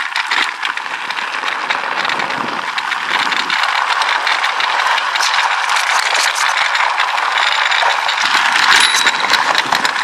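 Mountain cart rolling fast downhill, its wheels crunching over gravel and its frame rattling, with no engine.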